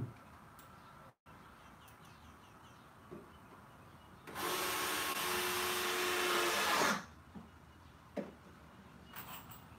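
Power drill running in one burst of about two and a half seconds, starting about four seconds in, driving a screw into a wooden platform, then winding down as it stops. A sharp knock right at the start and a couple of small clicks and knocks of the wood being handled.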